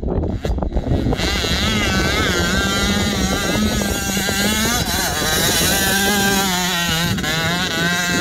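Motocross dirt bike engine revving hard, its pitch rising and falling again and again as the rider throttles on and off through soft sand. A few brief knocks in the first second.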